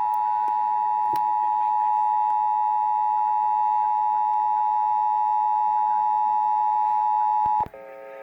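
Emergency Alert System attention signal broadcast over FM radio: a steady two-tone alarm at one even pitch, cutting off abruptly near the end. It marks the start of the required monthly test.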